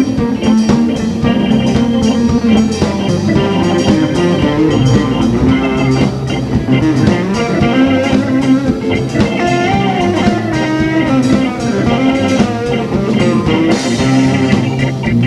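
Live rock band playing an instrumental passage: electric guitar over bass and drum kit, with no singing.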